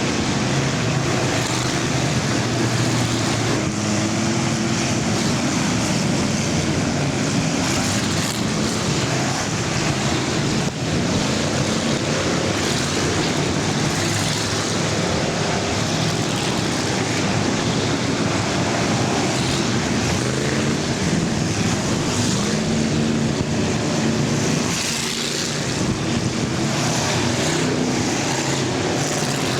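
Several full-size race cars' engines running together at speed in an enduro, a steady, dense engine noise whose pitches rise and fall as cars pass.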